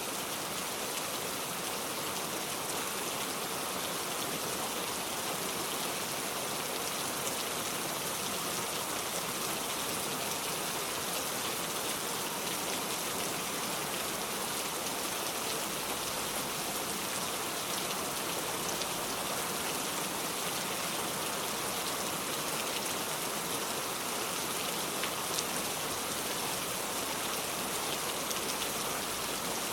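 Heavy rain falling steadily, an even hiss of many drops with an occasional single drop ticking out.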